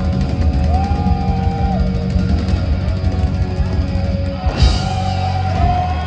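Hard rock band playing live at full volume, with electric guitars and a drum kit. About three-quarters of the way through there is a loud cymbal crash, and the band holds a last chord that cuts off at the very end, as the song finishes.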